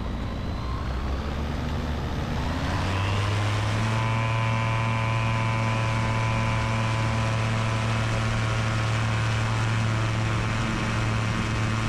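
Bat Hawk's Rotax 912 ULS four-cylinder engine and three-bladed E-prop propeller going to full takeoff power: the engine note rises over the first few seconds, then holds a steady drone as the aircraft accelerates on its takeoff roll.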